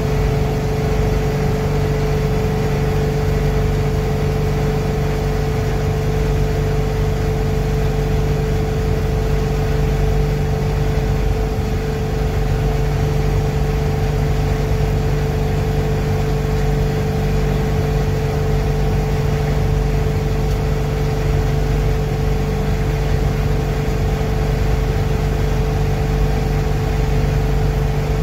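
A 7.3 IDI diesel V8 pulling steadily at highway cruising speed, heard inside the truck's cab as a constant engine hum with road noise and no change in pitch.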